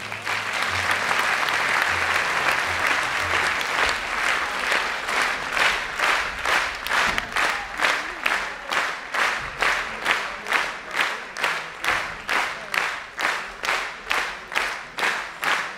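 Theatre audience applauding: a dense wash of applause that, about five seconds in, turns into rhythmic clapping in unison at about two claps a second.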